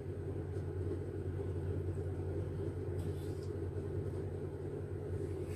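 Steady low background hum and rumble. About three seconds in come a few faint, brief rustles as a mandarin orange is peeled by hand.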